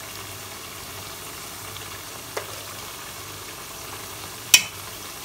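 Steady hiss of milk sauce heating in a saucepan on the stove, with a faint tap about two and a half seconds in and a sharp click near the end.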